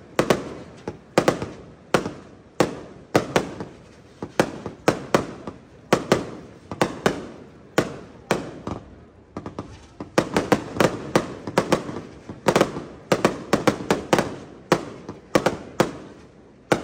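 Aerial fireworks shells bursting in quick succession: sharp bangs, each trailing a short echo, a few a second, coming thicker in the second half.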